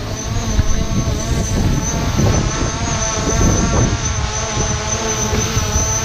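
Strong wind buffeting the microphone in gusts, with a steady whine of several held tones running underneath.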